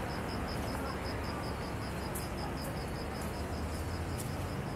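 An insect chirping in a steady, evenly spaced high-pitched pulse, about five chirps a second, over the low hum of street traffic.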